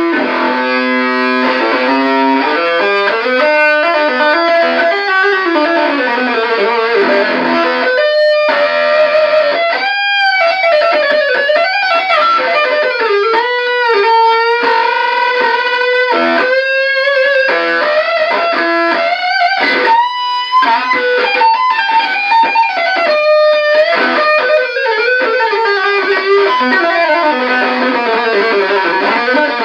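Electric guitar played through an Electro-Harmonix Muff Fuzz-style 1458 op-amp fuzz pedal into a 1959 Guild 66-J amp: a distorted, sustaining lead line with notes bent up and down.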